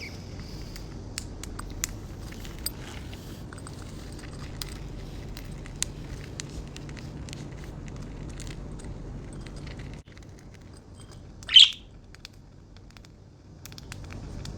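Budgerigars pecking and cracking seed: a scatter of small, sharp clicks over a low steady hum. One loud, short chirp comes about two-thirds through, just after the hum drops away.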